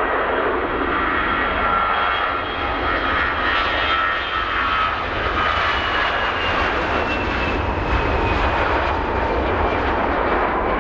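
Two CFM56 turbofan engines of an Airbus A320-214 at takeoff power as the airliner rolls down the runway and lifts off: a loud, steady jet rush with an engine whine that slowly falls in pitch as the aircraft passes.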